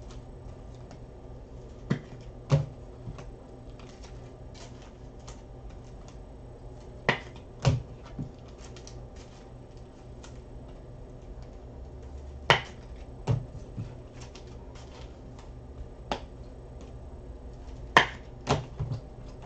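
Scattered light clicks and taps of trading cards and packs being handled on a tabletop, with a few sharper knocks several seconds apart, over a low steady hum.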